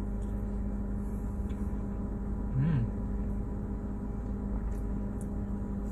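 A steady low hum with a rumble beneath it, and a short pitched vocal 'mm' from a person, rising then falling, about two and a half seconds in.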